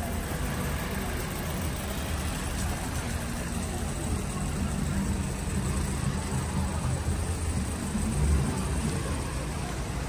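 Street traffic: a steady low rumble of car engines and tyres, with a brief louder swell near the end.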